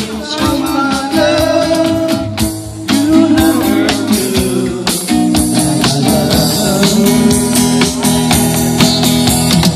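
Live amplified band playing a song: a man sings into a microphone over strummed acoustic guitar, with a steady percussive beat, all through a PA speaker.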